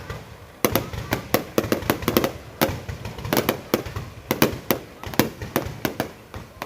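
Fireworks going off in a rapid, irregular string of sharp bangs, about three or four a second, starting about half a second in.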